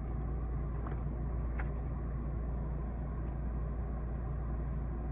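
Steady low mechanical hum, with two faint clicks about a second and a second and a half in.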